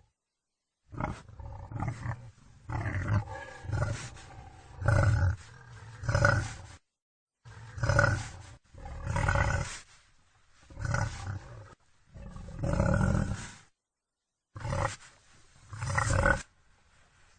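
Wild boar calling in a string of loud calls, each about half a second to a second long, broken three times by short dead-silent gaps where clips are joined.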